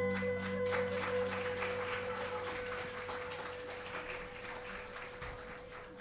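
Audience applauding at the end of a Balinese gamelan piece, with one note of the gamelan still ringing faintly underneath as it dies away. The clapping thins out and fades gradually.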